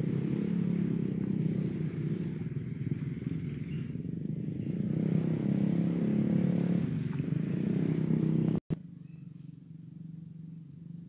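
A small engine running steadily, with a low, even hum, then a sudden dropout about three-quarters of the way through, after which it continues much fainter.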